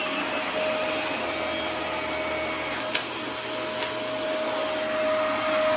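Dyson DC24 upright vacuum cleaner running steadily with a steady whine, two brief clicks about three and four seconds in.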